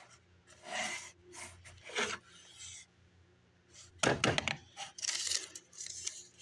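Handling noise: the plush Santa toy's fur and its paper tag being rubbed and rustled by hand, in a string of short scrapes. The loudest burst comes about four seconds in.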